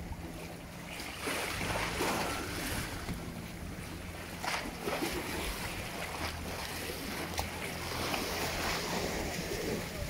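Choppy sea water splashing and lapping against a boat's hull in surges, with wind buffeting the microphone and a low steady hum underneath.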